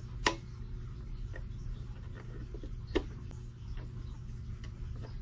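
Two sharp plastic clicks about three seconds apart, with a few fainter ticks, as the range knob is pushed onto the MFJ-870 SWR/wattmeter's range switch and handled.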